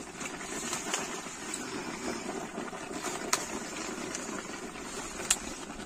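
A wood fire burning steadily under a large steaming pot of leaves, with two sharp crackles, one a little past halfway and one near the end.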